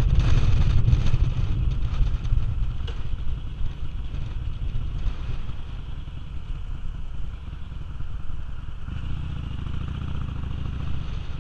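Cruiser motorcycle engine rumbling under wind rush, both easing off over the first few seconds as the bike slows down. The engine then runs steadily at low speed.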